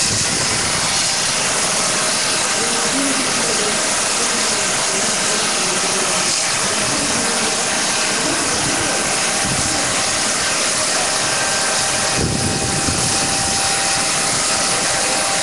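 Steady, loud engine drone with a faint constant whine, running unbroken, with faint crowd voices underneath.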